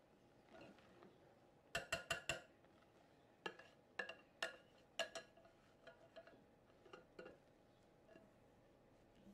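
Metal wire whisk clinking against a glass mixing bowl while beating thick pancake batter: a quick run of four clinks about two seconds in, a few more single clinks after, then fainter ones.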